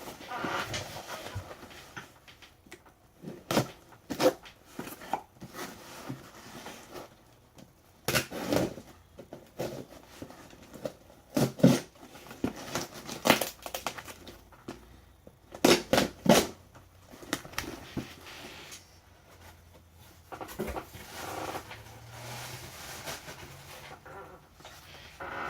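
A mailed package being opened and unpacked by hand: irregular tearing, crinkling of packing material and sharp knocks and clicks of cardboard.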